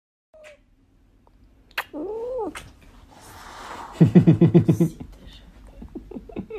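A cat meows once about two seconds in. About four seconds in, a tabby cat gives a loud, rapidly pulsing yowl lasting about a second, the loudest sound here, followed by a few softer short calls.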